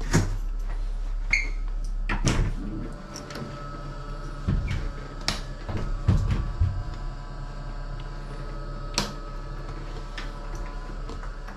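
Scattered knocks and clacks of cupboard doors being opened and shut in a small room, over a steady hum. There is a heavier thump about two seconds in, a cluster of knocks a few seconds later, and one more sharp knock near the end.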